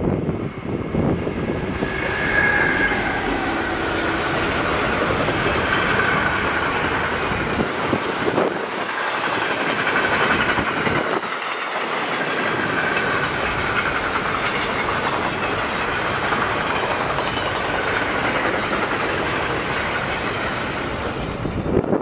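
Freight train passing: a DB Class 152 electric locomotive followed by a long rake of empty car-transporter wagons rolling by on the rails. A steady loud rolling noise builds as the locomotive arrives and fades as the last wagons pass near the end.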